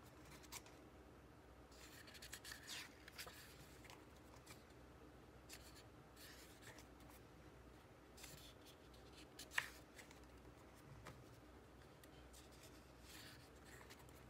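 Pages of a photo book being turned by hand: a few brief paper rustles and slides, with one sharp crisp snap of paper a little past halfway.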